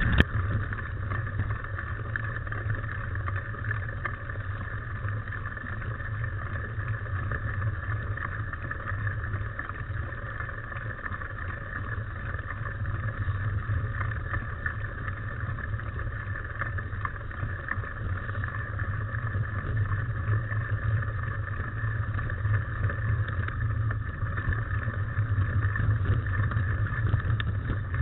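Steady rumble and hiss of wind and knobby tyres on a Cannondale mountain bike riding a dirt forest trail, picked up by a camera on the moving bike, with faint rattles from the bike. It grows a little louder over the last few seconds.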